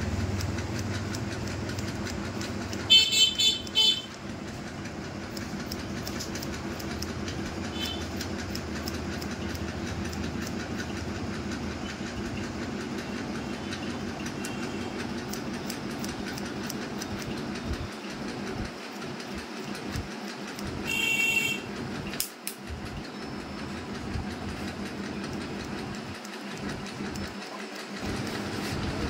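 Barber's scissors snipping hair over a comb, faint rapid clicks above a steady mechanical hum. Two brief, loud, high-pitched chirps cut in, about three seconds in and again about twenty-one seconds in.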